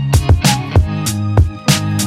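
Background music with a steady beat: kick drum and sharp percussion hits over sustained bass and chord tones.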